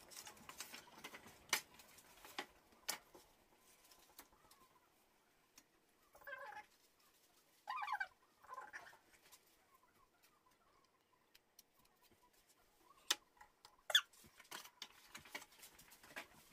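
Faint handling of a model locomotive's box and plastic packaging during unboxing: scattered sharp clicks and rustles, with a few short squeaky warbles about six and eight seconds in and two louder clicks near the end.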